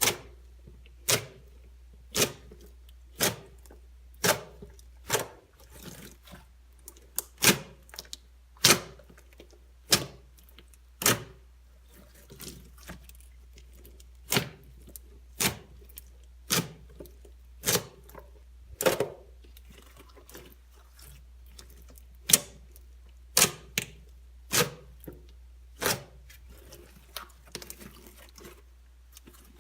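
Slime being pressed and squished, letting out sharp pops about once a second, with a few short pauses in between.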